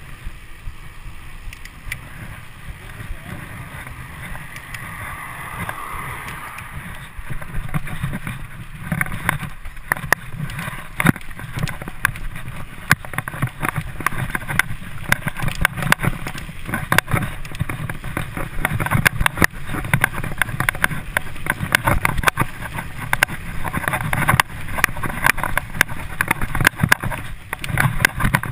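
Mountain bike ridden at speed: tyre rolling noise and wind rumble on the microphone. Partway through, a steady clatter of knocks and rattles starts as the bike runs over a bumpy dirt forest trail.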